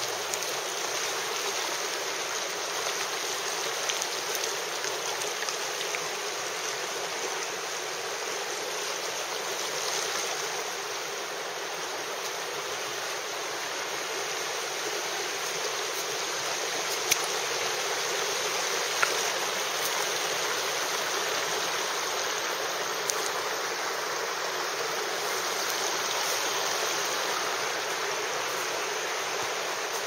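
Shallow, rocky river running fast over stones in small rapids: a steady rushing of water, with a few brief clicks late on.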